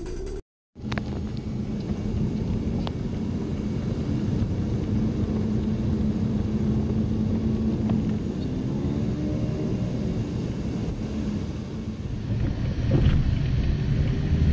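Road noise inside a moving Toyota Corolla's cabin, with a steady low hum underneath. The driver takes the hum for a worn front wheel bearing.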